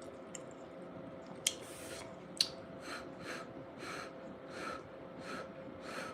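Close-miked eating sounds: two sharp mouth clicks, then a run of about six soft, noisy mouth-and-breath sounds, roughly one every two-thirds of a second.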